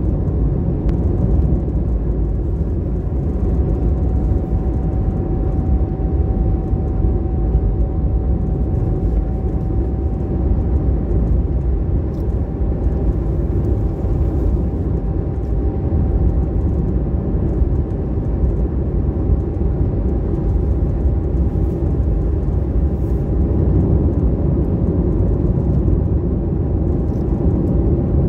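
Steady rumble of a moving car's road and engine noise, with a faint steady whine on top.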